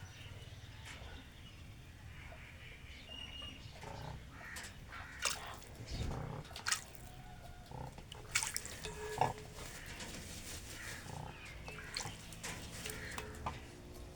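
Cranes bathing in shallow water: irregular splashes and drips, heaviest between about four and ten seconds in, over a low steady rumble, with a few short pitched animal calls near the end.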